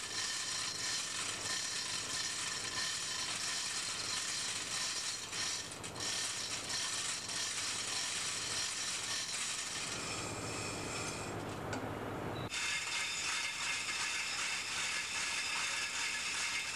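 Steady mechanical clatter and hum of running machinery, with fine rapid clicking. The sound changes abruptly about twelve seconds in.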